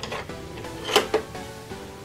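Light plastic clicks and knocks as toy plates are taken from a toy dishwasher's wire rack, the sharpest a little under a second in, over soft background music.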